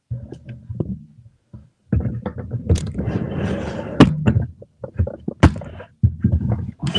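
Handling noise from the camera being picked up and repositioned: rubbing and scraping close to its microphone, with sharp knocks about four and five and a half seconds in.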